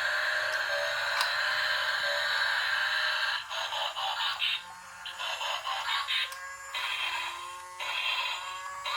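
Tinny electronic music, a thin melody of high tones with no bass, changing notes every second or so.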